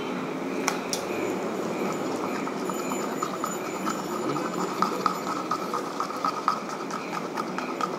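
A thin stick clicking and scraping against a small plastic cup as yellow screen-printing ink is stirred: irregular light taps, several a second, thickening from about halfway in, over a steady background noise.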